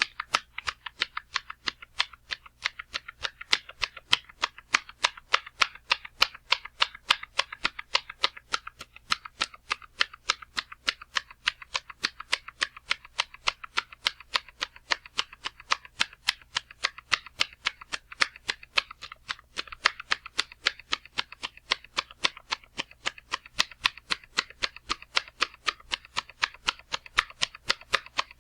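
A rapid run of sharp slamming impacts, about four to five a second, each one bright and snappy with no deep thud.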